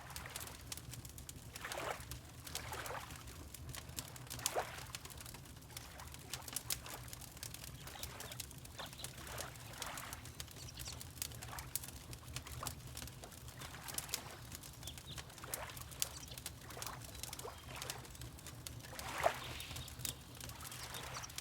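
Water lapping, with irregular small splashes and plops, the loudest about 2, 4.5 and 19 seconds in, over the sharp crackle of a wood fire and a steady low rumble.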